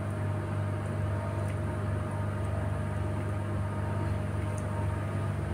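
Steady low mechanical hum with fainter higher tones riding on it, the constant drone of commercial kitchen equipment.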